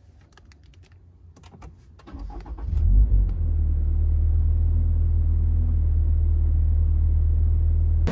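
A few light clicks, then the Toyota GR86's 2.4-litre flat-four boxer engine cranks and starts about two seconds in. It flares briefly, then settles into a steady idle, heard from inside the cabin.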